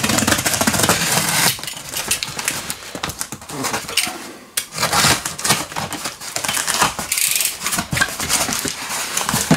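A knife slitting the packing tape on a cardboard shipping carton, followed by the cardboard flaps being pulled open: a continuous run of scraping, crackling and rubbing cardboard noises.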